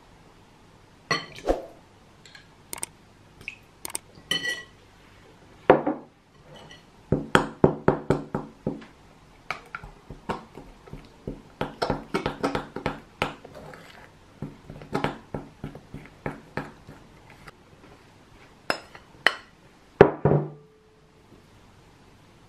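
A metal spoon clinking and scraping against a glass mixing bowl as eggs and olive oil are stirred into flour for pasta dough. The taps come in quick, irregular runs, with a louder knock and a short ring near the end.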